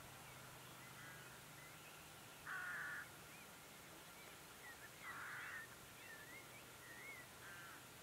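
Red grouse giving short, harsh calls: two louder ones about two and a half seconds apart, with fainter ones near the start and near the end. Faint, thin, whistled notes of another bird come in between.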